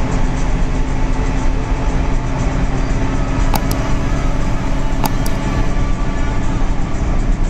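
Steady engine drone and road noise inside the cab of a moving intercity bus at highway speed, with a few sharp clicks or rattles about halfway through.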